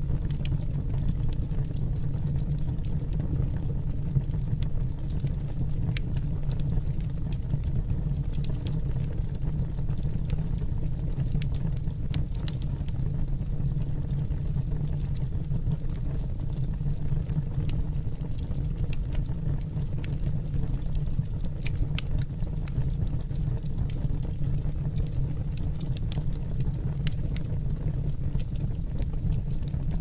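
Wood fire burning in a boiler firebox: a steady low rumble with scattered sharp crackles and pops.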